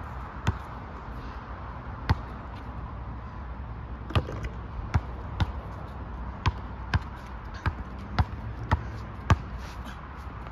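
A basketball bouncing on an asphalt court as a player dribbles: sharp single bounces, two spaced out at first, then a quicker, uneven run of dribbles from about four seconds in.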